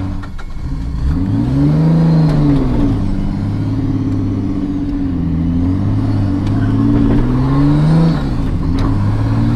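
Nissan Cefiro A31's engine and straight-through exhaust with no muffler, heard from inside the cabin while driving. The engine note climbs and drops back several times as the car pulls through traffic. It sounds loud, the result of the exhaust having no muffler at all.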